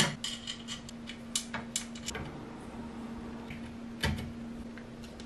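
Metal 3D-printer frame parts being handled and fitted: a sharp knock as a black spool-holder arm is set on the aluminium extrusion top bar, a run of small clicks and taps over the next two seconds, and another knock about four seconds in.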